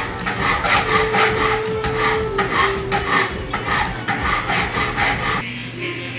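A hand file rasping in quick, even strokes, about three a second, working a metal ring; the strokes stop shortly before the end.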